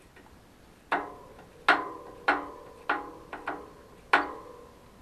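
Metal parts of a bicycle hub being tapped together: about seven sharp knocks, unevenly spaced over three seconds, each ringing briefly.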